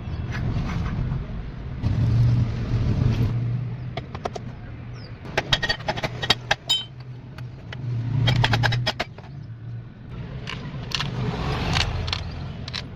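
Scooter engine running with a steady hum, swelling as it is revved three times. Sharp metallic clicks and rattles come in between, clustered a little under halfway through.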